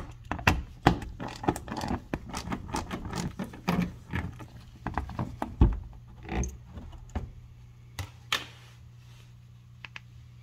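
Ratchet and socket clicking as the 8mm bolts of an underbody service panel are backed out, with metal-on-metal tool rattle; a thump about five and a half seconds in, then a few scattered clicks and knocks as the panel is pulled free.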